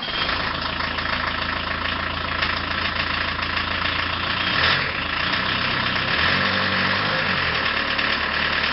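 Steady machine running noise: a low hum under a wide, even hiss, with a few shifts in the low tones partway through.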